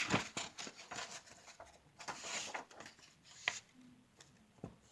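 Paper rustling and irregular clicks from handling a picture book as a page is turned, with a sharp click about three and a half seconds in.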